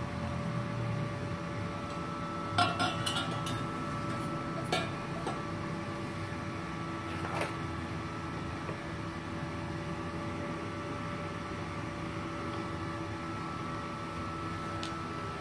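Inverter TIG welder switched on but not welding: its cooling fan runs with a steady hum and a few held whine tones. Light metallic clinks come in a quick cluster about three seconds in, then singly near five and seven seconds.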